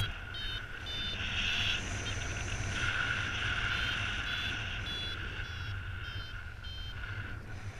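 Paragliding variometer beeping in short high beeps, a little under two a second and shifting in pitch, the tone that signals the glider is climbing. Behind it, steady rushing wind on the microphone.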